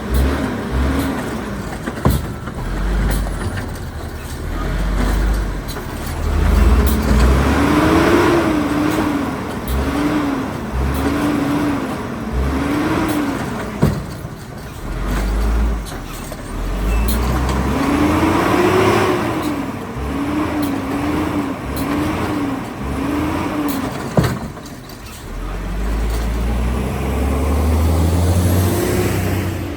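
Autocar WX side-loader garbage truck's diesel engine revving up and down as its Rapid Rail automated arm lifts a cart, then four quick revs in a row as the cart is shaken out. The cycle repeats twice, with sharp single bangs of the arm and cart in between.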